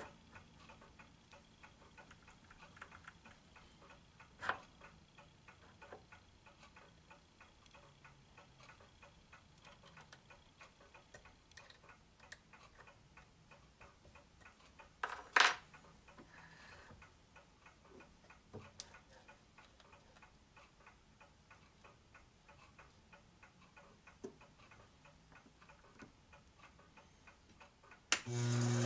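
Faint, steady ticking of a clock, with a few sharp metal knocks and clinks as a tool bit is changed and set in the lathe's tool post; the loudest knock comes about halfway through. Right at the end the Taig micro lathe's motor starts and runs with a steady hum.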